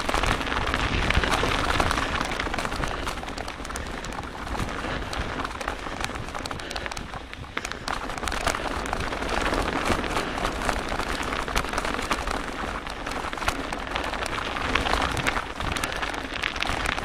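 Riding noise from a camera on a mountain bike moving fast over a rough snowy trail: a continuous rush with many small crackles and rattles, tyre and frame noise mixed with wind on the microphone.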